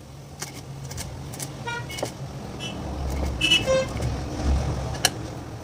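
Road traffic rumbling with several short car horn toots, the loudest about three and a half seconds in; a sharp click near the end.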